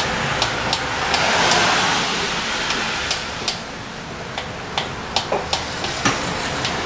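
Irregular light clicks and taps of hand tools on metal engine parts, over a steady hiss that swells briefly about a second in.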